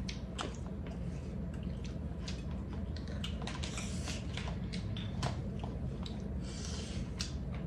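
Close-up eating sounds: wet chewing and lip-smacking with many small clicks, and a couple of longer hissing sounds about halfway through and near the end.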